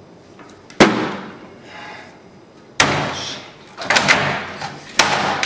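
A computer being smashed: about five heavy blows at irregular intervals, each a sharp bang with a short ringing decay, two or three of them in quick succession about four seconds in.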